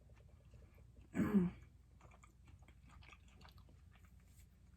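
Close-miked chewing of bread: faint, irregular small wet clicks and crunches of the mouth. About a second in comes one brief voiced sound from the eater, like a short hum.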